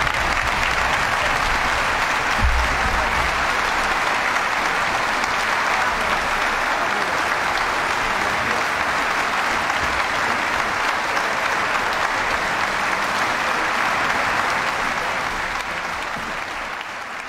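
Large audience applauding steadily, the clapping fading away near the end.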